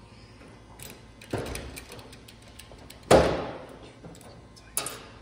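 A hand pressing and shifting a louvred hood vent on a car's bare hood: three short knocks and scrapes. The loudest comes about three seconds in and fades over about a second, and a shorter, brighter one comes near the end.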